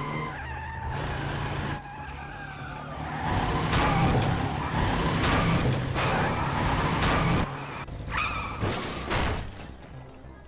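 Cartoon slapstick chase sound effects: a horse skidding and scrambling, with several sharp crashes of smashed wood and debris, loudest in the middle, then dying down near the end.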